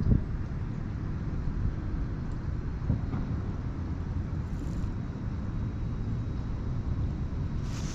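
Steady low rumble of wind buffeting the camera's microphone, with a light knock about three seconds in.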